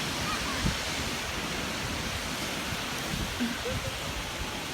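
Steady rush of ocean surf at the beach, with wind buffeting the microphone.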